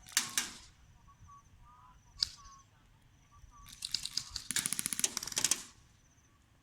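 Airsoft guns firing: a short full-auto burst at the start, a single shot about two seconds in, then a longer rapid burst of fast clicking pops lasting about two seconds.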